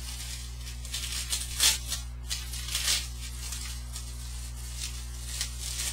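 Bubble wrap rustling and crinkling in irregular bursts as it is unwrapped by hand from an eyeshadow palette, loudest a little under two seconds in.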